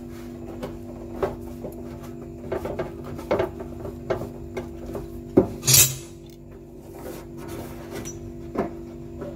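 Metal parts of a stove being handled, with scattered light clinks and knocks. About five and a half seconds in there is a louder knock followed by a short scrape.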